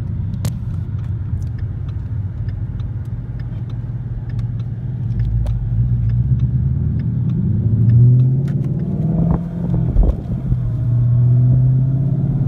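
2015 Mustang GT's 5.0 V8 running while being driven, heard from inside the car: a steady low hum that climbs in pitch about eight seconds in, breaks briefly with a few knocks around nine to ten seconds in, then settles again.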